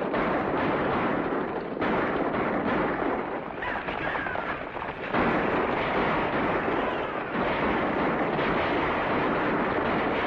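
Horse team galloping and a stagecoach rolling, heard as a dense, loud rush of noise on an old film soundtrack, changing abruptly about two and five seconds in.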